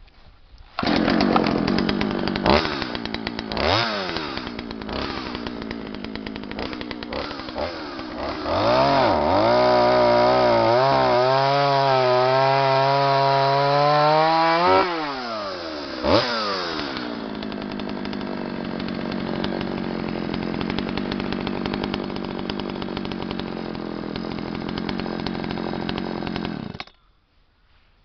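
Oleo-Mac 936 two-stroke chainsaw firing up about a second in and idling, with a couple of quick throttle blips. It is then revved high for about six seconds, the pitch wavering and climbing, drops back to idle, is blipped once more, and idles until it cuts out suddenly near the end.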